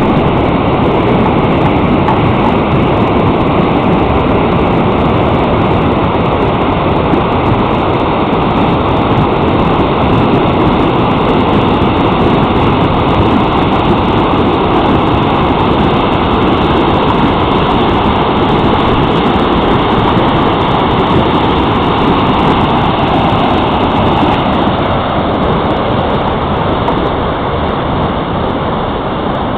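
Floodwater rushing steadily through a floodway channel, a loud continuous roar of flowing water that eases slightly near the end.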